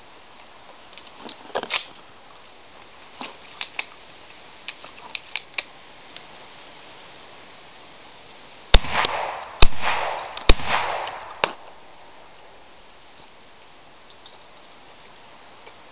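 A quick string of about five gunshots fired at a tree trunk, the cracks under a second apart and ringing out after each. Fainter sharp clicks come in the first half before the shots.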